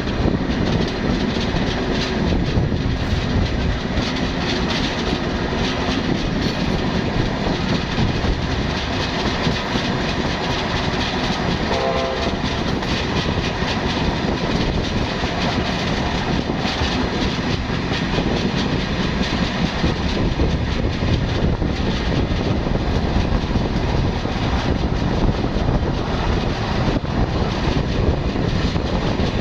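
Passenger train running past at close range as it leaves the station: a steady loud rumble of the coaches with wheels clattering over the rail joints, and a short tone about twelve seconds in.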